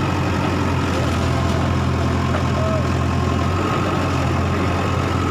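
Diesel engine of a backhoe loader idling steadily, a constant low hum.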